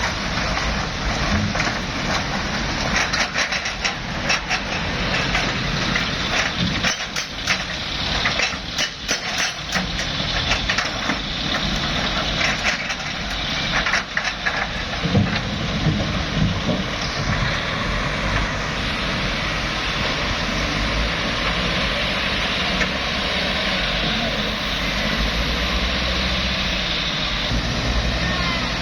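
Diesel engine of heavy earth-moving machinery running steadily, with a run of knocks and clattering for several seconds about a quarter of the way in.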